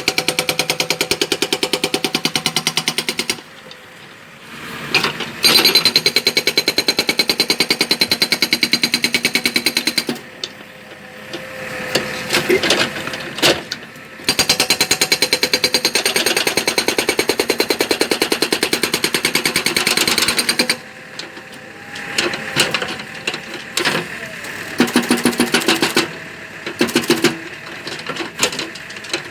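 Hydraulic concrete breaker hammering in rapid, even strokes. It runs for several seconds at a time, stops briefly between runs, and gives only short bursts near the end. Quieter machine noise carries on in the pauses.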